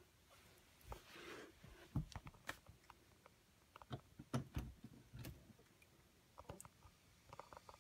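Faint handling and movement noises: scattered soft clicks, taps and thumps, with a brief rustle about a second in and a cluster of knocks from about four to five seconds. No meow is heard.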